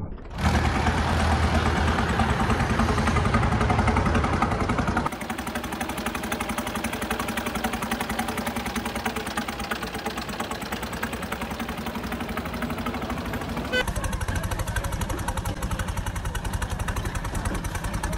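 Massey Ferguson 9500 tractor diesel engines running through tall straight exhaust stacks, with a fast, even exhaust beat. The sound shifts abruptly about five seconds in and again near fourteen seconds as one tractor clip gives way to another.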